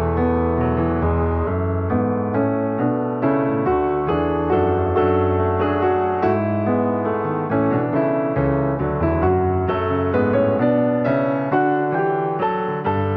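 Background music: a piano piece playing a steady stream of notes.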